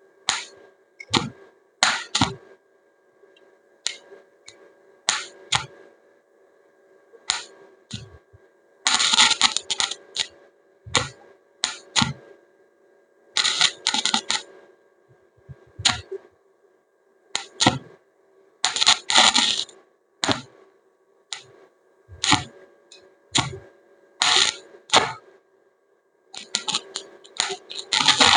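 Metal parts clinking and rattling: sharp single clinks, with several bursts of rapid clatter about a second long, over a steady hum.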